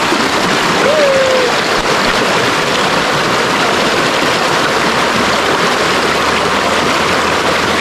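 Shallow river water rushing over rocks and a small cascade: a steady, unbroken rush.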